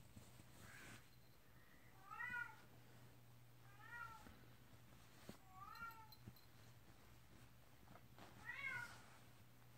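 Bengal kitten meowing: four short, high-pitched meows about two seconds apart, each rising then falling in pitch.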